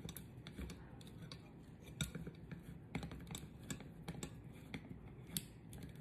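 Faint, irregular clicks and ticks as the vertical rotisserie's spit is twisted by its handle to work it out of the cooked chicken.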